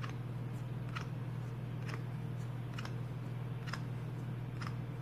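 A steady low hum with a light tick repeating at an even pace, a little faster than once a second.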